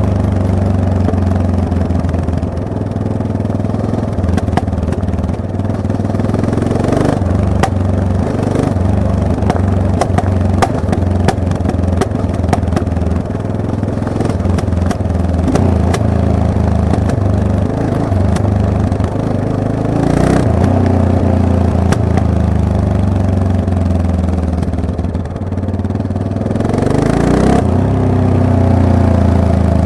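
Yamaha MT-03 motorcycle engine running under way, its pitch rising as it accelerates about two-thirds of the way in and again near the end. Many short sharp clicks and ticks come over it through the middle stretch.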